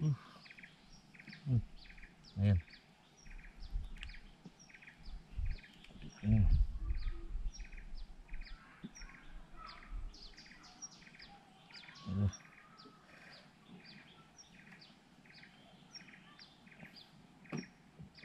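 Short high animal calls repeating evenly, about two a second, with a few low knocks and bumps; the loudest knock comes about six seconds in.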